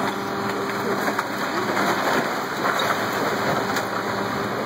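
Masonry wall of a building breaking apart under a demolition excavator's bucket: a continuous crackling rumble of bricks and rubble falling.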